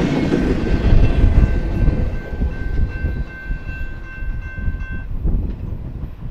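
Double-stack intermodal freight train rolling past, its low rumble fading as the last well cars clear the grade crossing. A steady high-pitched tone sounds over it and stops suddenly about five seconds in.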